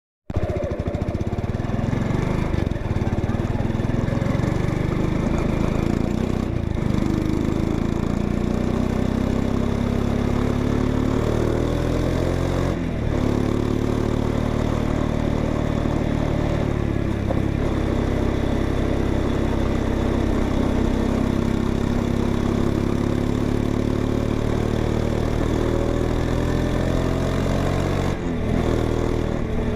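Exhaust of a 2025 Honda XRE 190's single-cylinder engine running, its pitch rising and falling slowly, with a few brief dips in the sound.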